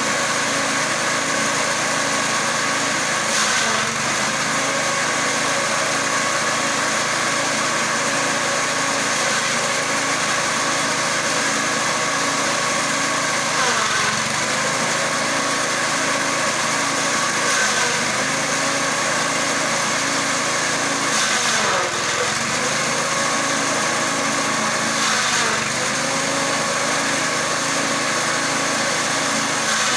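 Engine-driven grass chopper running steadily, its engine note sagging briefly several times as it takes load.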